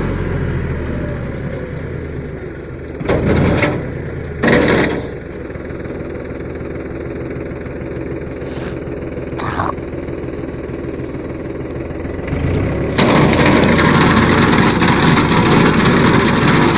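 Tractor engine running steadily while its front-mounted crop-cutting machine cuts a standing crop. There are two short loud bursts about three and four and a half seconds in, and about thirteen seconds in the sound gets much louder and rougher.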